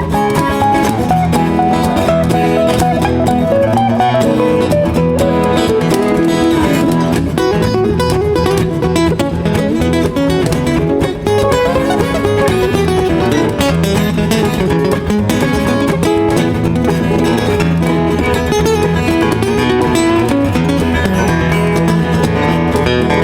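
Instrumental break played on acoustic guitars: a lead guitar picks a moving melody over strummed rhythm guitars, with a steady beat underneath.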